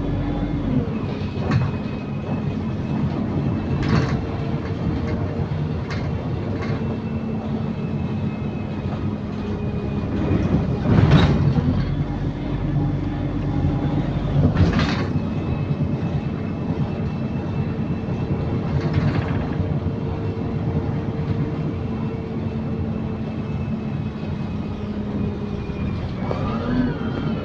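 Inside an Optare Solo SR bus with a Voith automatic gearbox under way: a steady drone from the engine and drivetrain, with a held whine, and interior rattles and sharp knocks now and then over the road, the loudest about eleven seconds in. The uploader calls the bus a rattlebox.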